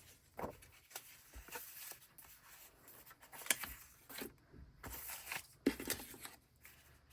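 Paper flaps and journal pages being handled on a desk: light rustling with a few soft taps and clicks, the sharpest about three and a half and nearly six seconds in.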